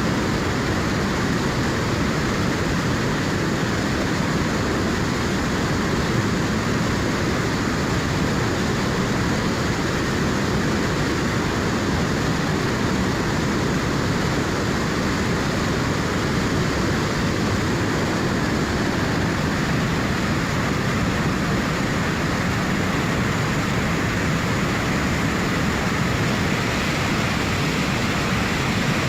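River in high flow, its water rushing steadily in a dense, even wash of noise with no pauses or changes.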